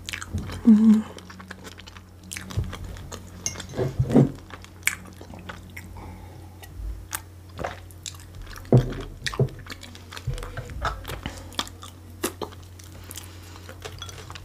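Close-miked chewing of a salad with pineapple and mushrooms: many small wet mouth clicks, with a few louder smacks or bites scattered through. A faint steady low hum runs underneath.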